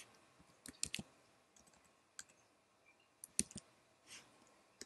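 Faint, scattered clicks of keys being typed on a computer keyboard, a few at a time in small bursts, with a soft hiss about four seconds in.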